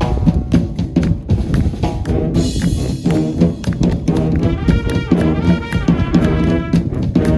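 High school marching band drumline playing a fast pattern on snare and bass drums, with a cymbal-like crash about two and a half seconds in. Brass comes in over the drums about halfway through.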